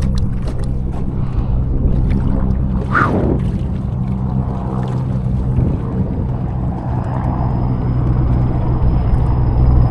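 Steady low engine drone with an even hum, and a brief rushing splash-like noise about three seconds in.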